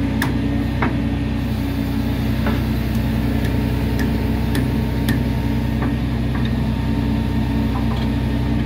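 An engine running steadily at an even speed, with scattered light clicks and knocks over it.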